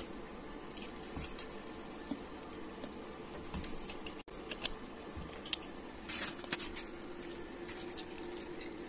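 Light handling noise: a few sharp clicks and a brief rustle about six seconds in, over a faint steady hum with a steady tone that comes in about halfway.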